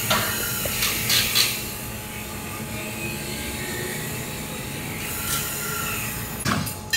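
Construction-site background at a railway station: a steady hum with a few sharp knocks in the first second and a half and another knock shortly before the end.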